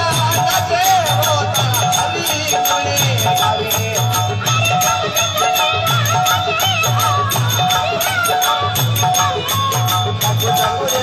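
Man singing a Rajasthani desi bhajan into a microphone, over folk accompaniment with fast rattling percussion and a low repeating beat.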